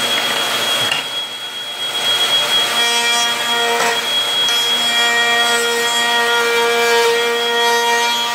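Table-mounted router running, its bit cutting a radius along the edge of a multiplex plywood slingshot frame. A steady high whine over rough cutting noise dips briefly about a second in, then settles into a steady pitched tone as the wood is fed past the bit.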